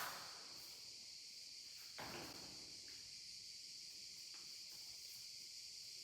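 Faint, steady, high-pitched insect chorus, with a soft knock about two seconds in.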